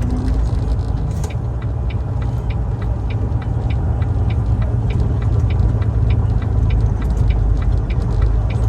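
Semi truck's diesel engine running at low speed, heard from inside the cab as a steady low rumble, with a light regular ticking, about two or three ticks a second, over it from about a second in.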